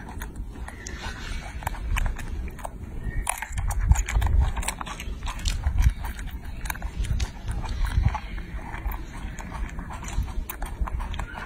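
Baby macaque chewing grapes with wet, smacking mouth clicks in quick irregular succession, over a low rumble with a few dull thumps.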